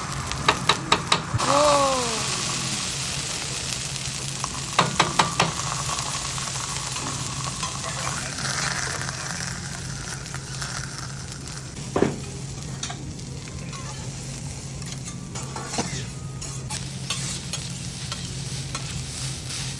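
Food sizzling on a hibachi griddle. Runs of four or five quick sharp clicks come near the start and again about five seconds in, a short falling tone follows the first run, and a single sharp hit comes about twelve seconds in.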